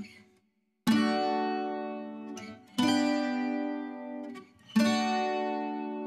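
Background music: chords strummed on a plucked string instrument, three of them about two seconds apart, each left to ring and fade. The first comes after a brief silence about a second in.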